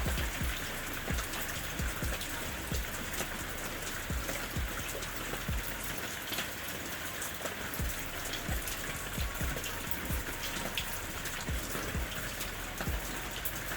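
Steady rain, with many single drops tapping out distinctly against the even hiss of the downpour.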